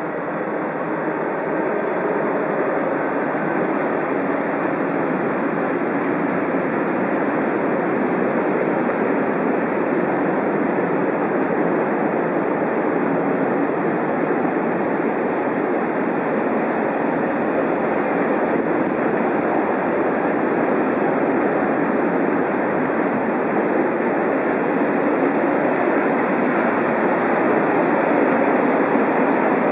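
Freight train of tank wagons rolling past: a steady rush and rumble of wheels on rail that builds over the first couple of seconds and then holds.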